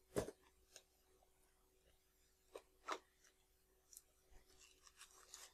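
Scissors and cardboard and foil packaging being handled while a trading-card box is opened: one sharp click just after the start, two softer clicks about three seconds in, and faint rustling near the end.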